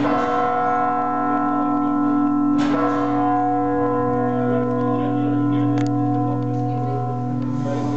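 Large church bells of Hallgrímskirkja tolling noon, heard loud and close from the tower's observation deck. A new stroke lands every few seconds over the steady, many-toned hum of the bells still ringing.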